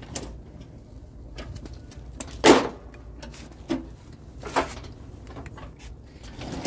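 A handful of short knocks and clunks from handling parts on a lawn tractor during deck removal, the loudest about two and a half seconds in.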